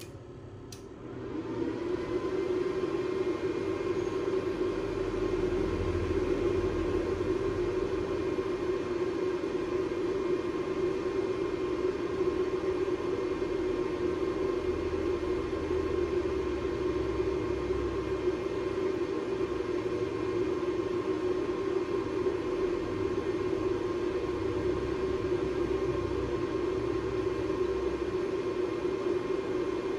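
Homemade induction heater run from a ZX7-200 inverter welding machine, switching on about a second in and then running steadily: an even whirring hum with a faint high tone, while a steel pipe in its copper work coil heats to red.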